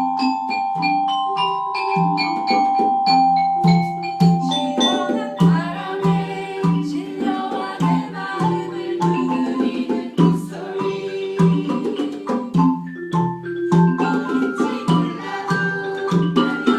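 Mallet-percussion music: a melody of struck, ringing notes over a repeating low bass pattern. About five seconds in, the notes become denser and busier.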